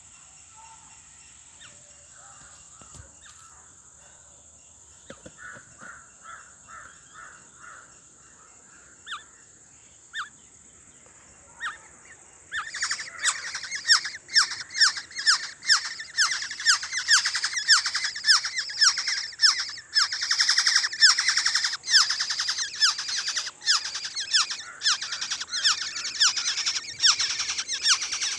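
A brood of nestlings begging with gaping mouths. A faint, sparse chirping gives way about halfway through to a loud, rapid, unbroken stream of high, shrill chirps.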